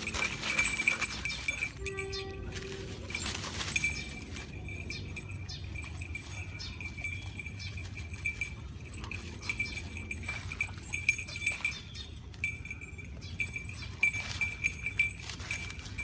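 Dogs moving and sniffing through dry leaves and grass, with scattered light rustles and small clinks over a steady high-pitched trill that breaks off now and then. A short animal cry about two seconds in.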